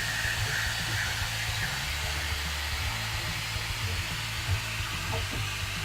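Truck-mounted vacuum drawing air through a dryer duct via a 2.5-inch hose: a steady rushing hiss over a low hum.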